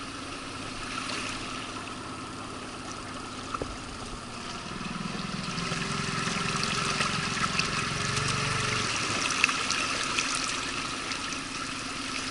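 Small outboard motor running steadily, pushing an inflatable boat along a river, with water rushing and splashing along the hull. The sound grows louder about five seconds in.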